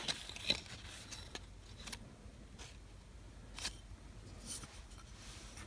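Faint, scattered clicks and light taps, about six in all, of small hard objects being handled.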